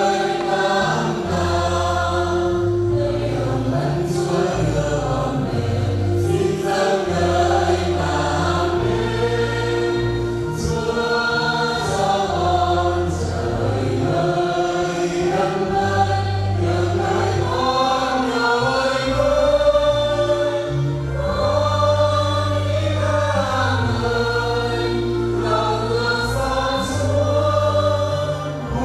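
Church choir singing a hymn over an accompaniment of long held bass notes that change every second or two.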